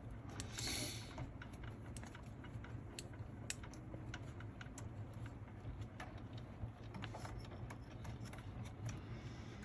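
Light, irregular clicks and taps of a hex driver and small metal parts being handled while working on an RC truck's front suspension, with a brief soft hiss about half a second in.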